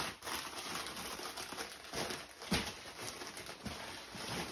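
Plastic mailer bag rustling and crinkling with scattered small crackles as it is handled and reached into.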